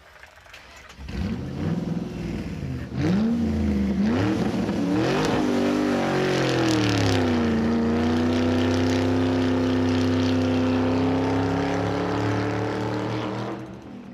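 Vehicle engine revving, its pitch swinging up and down for a few seconds, then running at a steady pitch before fading out near the end.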